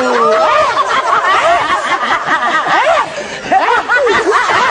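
Laughter and giggling from several voices overlapping, with short rising-and-falling laughs running on without a break.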